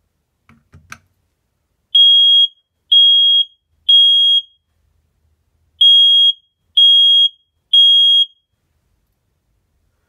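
FireAngel smoke alarm sounding on test: a couple of light knocks as the test button is pushed with a pole, then six loud, high-pitched beeps in two groups of three, about a second apart, in the temporal-three alarm pattern.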